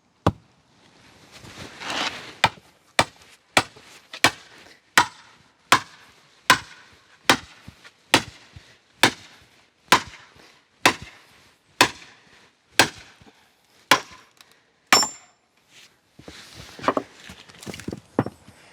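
An axe chopping a firewood log, about seventeen sharp strikes at a steady pace of a little more than one a second, one near the end with a brief metallic ring, followed by a few lighter knocks.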